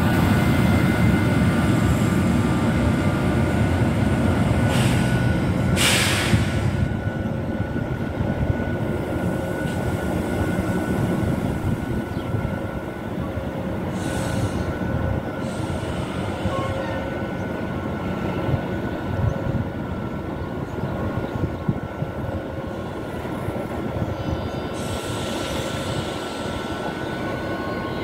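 SNCF BB 26000-series electric locomotive running light and pulling slowly away: a low rumble of wheels and motors with a steady whine from its traction equipment. A few brief hisses come through, the loudest about six seconds in.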